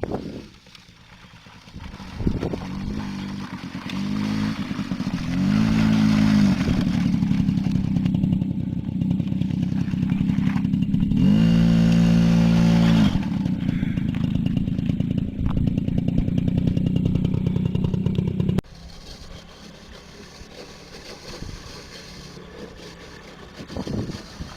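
Small ATV engine running close by, revving up several times with its pitch rising as it accelerates. It drops off suddenly about eighteen seconds in, leaving a quieter engine hum.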